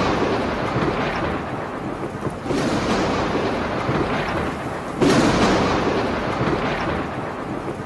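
Thunderstorm: rumbling thunder over steady rain, swelling sharply about every two and a half seconds and then fading.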